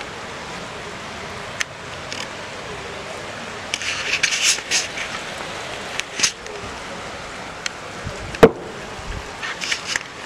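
Steady wash of rain and floodwater running down a flooded street. Short close rustles and clicks come and go over it, with a single sharp knock, the loudest sound, about eight seconds in.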